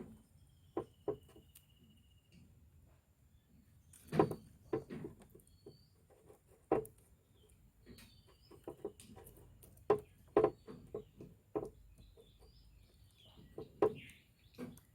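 Scattered clicks and knocks of hand work on a scooter's wiring, the loudest about four seconds in, with birds chirping faintly in the background.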